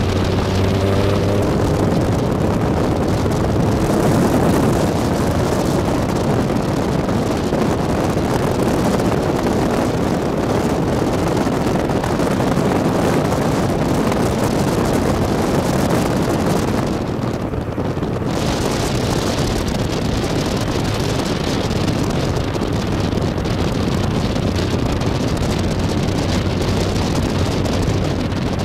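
Tiger sports car at speed: steady engine drone and road noise under heavy wind rushing over the microphone in the open cockpit, easing briefly a little past halfway.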